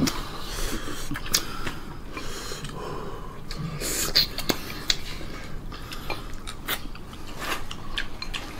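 Close-up eating sounds: a person biting, chewing and sucking at braised pork on the bone, with lip smacks and breaths through the nose. Short clicks of chopsticks and wet mouth noises come scattered throughout.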